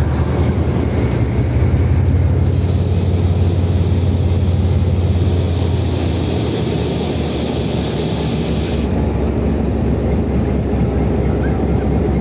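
Diesel locomotives running with a steady low engine drone. About two and a half seconds in, a high hiss starts and cuts off suddenly some six seconds later.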